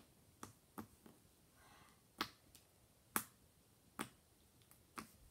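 Homemade slime being squeezed and pressed in the hands, giving about seven sharp, irregularly spaced clicks and pops, the loudest a little past three seconds in.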